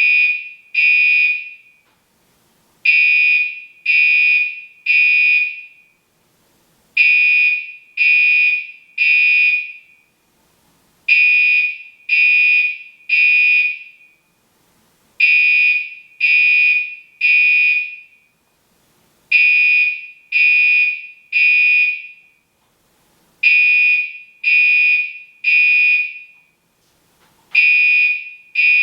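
Gentex Commander 3 fire alarm horn sounding loud, high-pitched blasts in groups of three, each group repeating about every four seconds: the temporal-3 evacuation signal.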